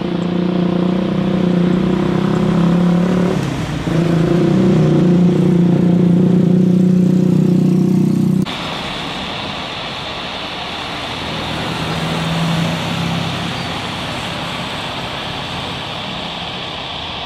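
Jet engines of a narrow-body Airbus A320-family airliner running loud on the runway, a steady low drone with a brief dip partway through. Near the middle the sound cuts off abruptly to the quieter, hissing jet noise of an Airbus A330 on final approach, whose low engine drone swells briefly a few seconds later.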